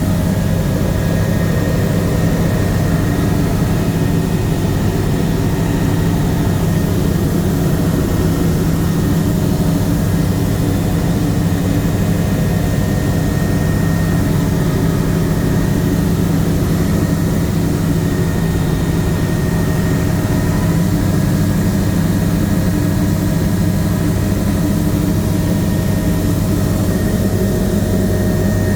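Bell 505 Jet Ranger X helicopter in flight, heard from inside the cabin: the steady, loud drone of its turboshaft engine and main rotor, with a few constant humming tones over a deep rumble.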